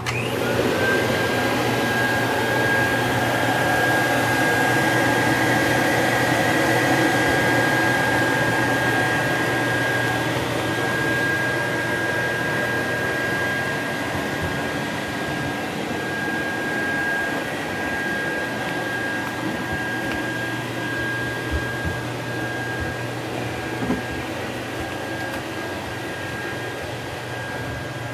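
1937 Electrolux Model 30 canister vacuum cleaner switched on: its motor spins up with a whine that rises and settles within about a second, then runs steadily, a high steady tone over the motor's hum and rushing air.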